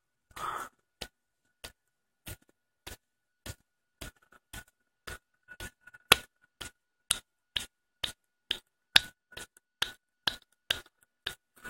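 A hand slapping a face over and over, about two sharp smacks a second, louder in the second half: a drunk man testing for numbness.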